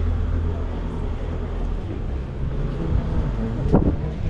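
Busy town street ambience: a low, steady rumble of traffic, with a brief snatch of a passer-by's voice near the end.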